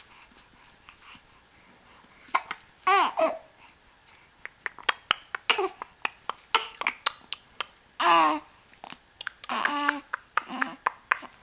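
Infant cooing and babbling in several drawn-out, high-pitched vocal sounds, with quick short clicks between them.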